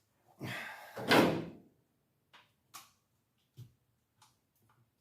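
A scraping slide, loudest just over a second in, followed by a few light clicks and taps: tools or parts being handled during work on a car engine.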